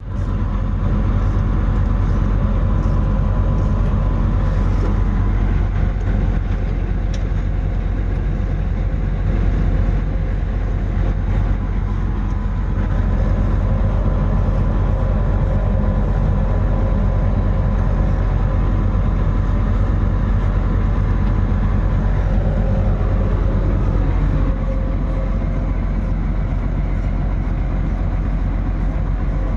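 Excavator diesel engine running steadily, a deep hum with a thin steady whine on top; the level steps slightly about twelve seconds in and again near the end.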